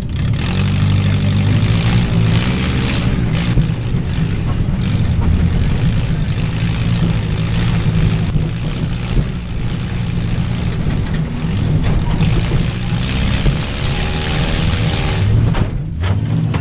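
Demolition derby van's engine running hard and revving up and down, with a loud rushing noise over it. A brief drop in the engine sound comes near the end.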